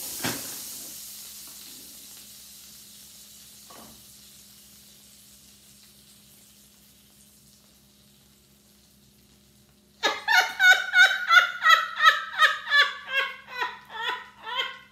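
Floured apple hand pie sizzling in a hot skillet, the sizzle dying away gradually over several seconds. About ten seconds in, a woman breaks into loud, pulsing laughter, the loudest sound here.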